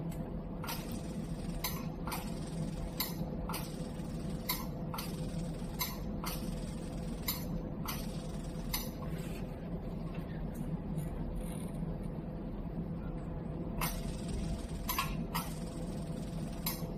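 Laser screen-repair machine humming steadily with a faint constant tone, with short sharp clicks every half second to a second and a pause of a few seconds after the middle.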